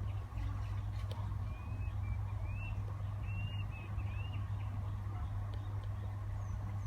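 A small bird calls a quick series of short whistled notes, each rising and falling, between about one and a half and four seconds in. A steady low hum runs underneath throughout.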